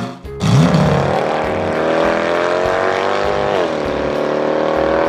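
Cartoon vehicle engine sound effect: a steady motor hum whose pitch rises slowly, dips briefly about three and a half seconds in, then holds level. A short upward swoop comes just before it.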